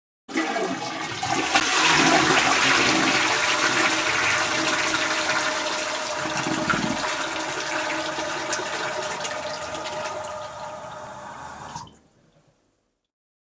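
Toilet flushing: a loud rush of water that starts suddenly, slowly dies down over about ten seconds, then cuts off abruptly, with a steady tone running under the rush.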